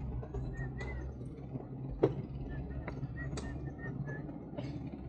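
Bicycle rolling along a path: a steady low rumble with a few clicks and one sharp knock about two seconds in. Short high chirps repeat over it, several in quick succession.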